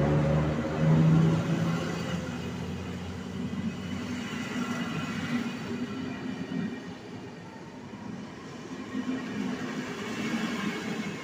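Passenger coaches of an EP09-hauled PKP Intercity train rolling past with a steady rumble of wheels on rail. A pitched hum is loudest in the first second or two and then fades as the train goes by.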